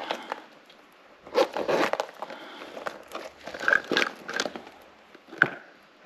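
Leather handbags and a small pouch being handled and rummaged through: rustling and crinkling with light clicks of small items, in short bursts about a second in and around three to four seconds, with a sharp click near the end.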